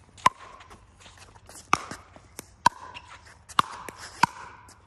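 Pickleball rally: paddles striking a plastic pickleball, five sharp pops roughly a second apart, each with a brief ringing tone, with fainter taps between.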